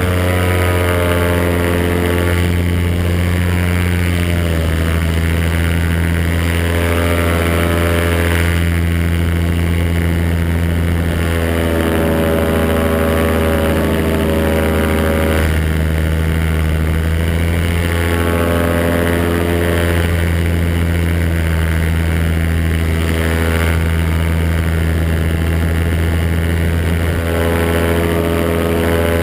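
Paramotor engine and propeller running steadily in flight, with a hiss of wind. The engine note drops slightly about four and a half seconds in.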